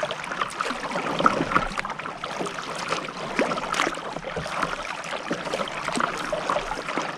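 Water splashing and trickling as a kayak is paddled along, with many small irregular drips and splashes throughout.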